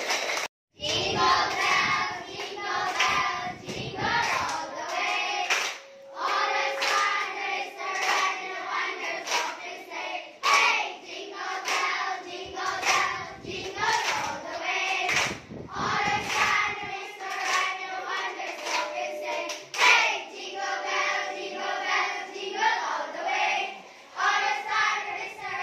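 A group of children singing a song together, with hand claps along with it. The sound drops out briefly just under a second in, then the singing carries on.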